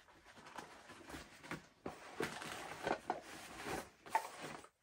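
Nylon military pouches and MOLLE webbing straps being handled and fitted together: irregular rustling and scraping of fabric with a few small clicks.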